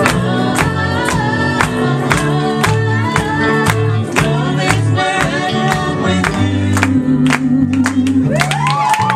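Live band with drums, bass, guitar and piano playing a song with several singers, the audience clapping along to the beat. Near the end a note slides up and is held.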